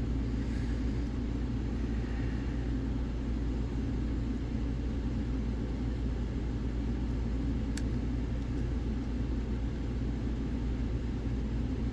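Steady low rumble and hum, even throughout, with one faint sharp click from the lock picking about eight seconds in.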